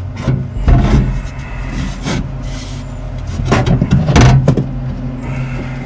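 Cheap wire-feed welder humming steadily, with several short crackling bursts of arc as the trigger is pulled and wire is fed.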